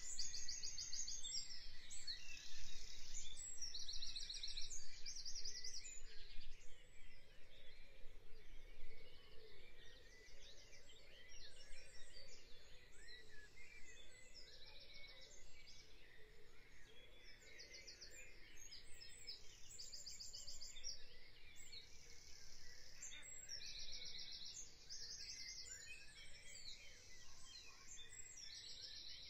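Woodland birdsong: a short, high, fast trill repeated every couple of seconds over scattered chirps from other small birds, against a faint outdoor hiss.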